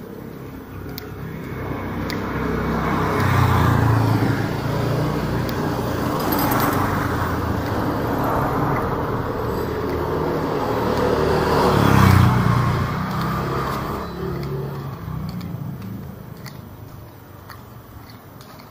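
Motor vehicles driving past close by, engine rumble and tyre noise swelling over a few seconds, peaking twice, then fading away near the end.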